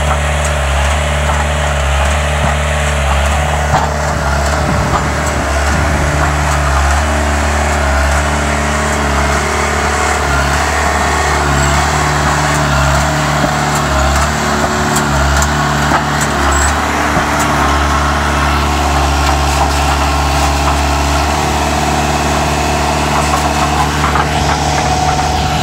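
Engine of a wheeled post-driver rig running steadily.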